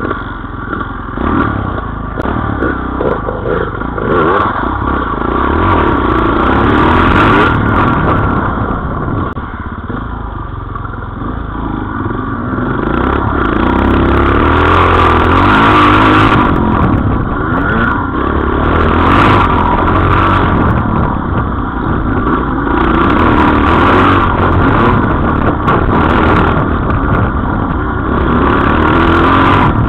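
Off-road motorcycle engines on a rough dirt trail, heard from on board. The engine note rises and falls as the throttle is worked, with occasional knocks. It eases off for a few seconds about a third of the way in, then climbs again.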